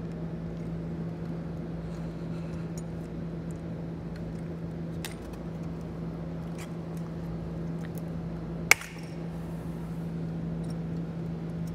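Tin snips cutting through the soft metal of a car battery's positive cable terminal: scattered small clicks and crunches, then one sharp loud snap about three-quarters of the way through, over a steady low hum.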